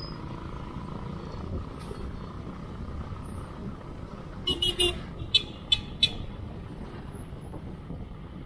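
Steady wind and tyre noise from riding in road traffic. About halfway through, a horn sounds a run of short sharp toots: three quick ones, then three more.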